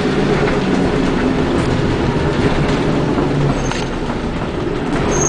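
Inside a moving Scania double-decker bus: the diesel engine running steadily under road noise, with the cabin's panels and fittings rattling. A brief high squeak comes about three and a half seconds in and again at the very end.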